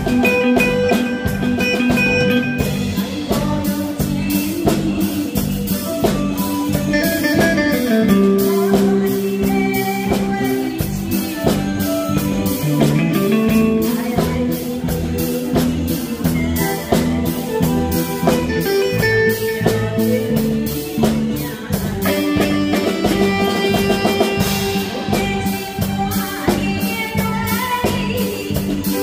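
A live band plays a Taiwanese ballad with a steady drum beat and guitar. A woman's singing voice comes in through a microphone a few seconds in.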